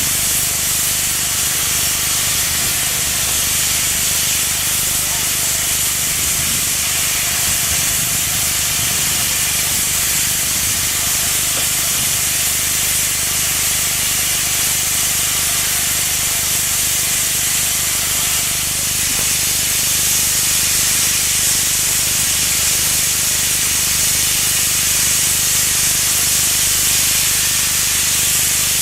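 Narrow-gauge steam locomotive letting off steam, a steady loud hiss that grows a little louder about two-thirds of the way through.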